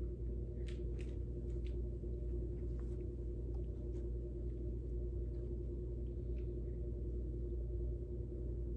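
Steady low room hum with one held tone, and a few faint scattered clicks.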